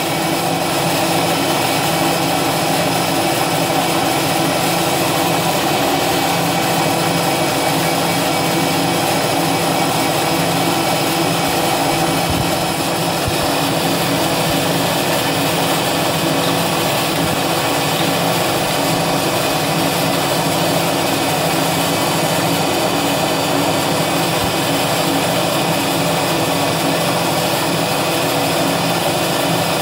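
CNC milling machine spindle running steadily while a small end mill cuts a thin aluminium plate, a constant machine whine made of many steady tones.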